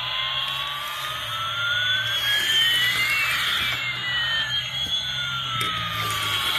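Electronic sound effect from a noise-making pull-back toy vehicle: a steady hissing noise with two slow pitch glides crossing, one rising and one falling over several seconds.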